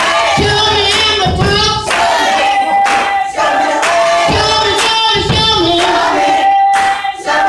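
Several voices singing a church song together, backed by a live band of drums and guitar.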